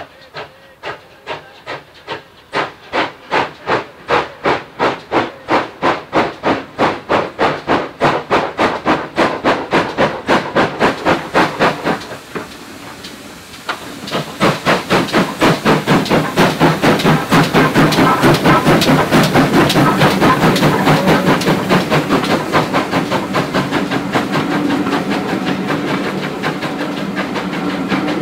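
GWR 5700 class pannier tank steam locomotive No. 5786, an 0-6-0T, working a train away under power. Its chimney exhaust beats quicken from about two to about four a second. After a brief dip about halfway through, the beats come louder and closer over the rumble of the passing coaches.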